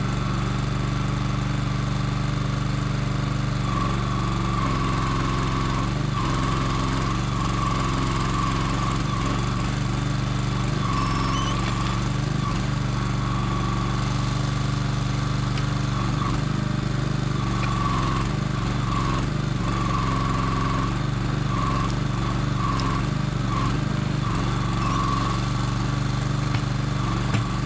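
Small engine running steadily to power a Kranman log loader's hydraulic crane as it is worked, with a higher whine that comes and goes as the boom moves.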